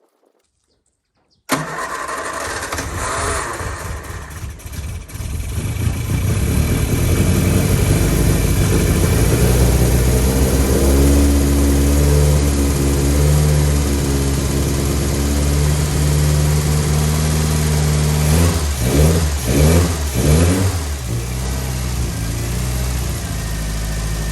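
Classic Mini's A-series engine bursting into life and running, uneven for the first few seconds, then holding a steady fast idle, with a few quick revs blipped near the end.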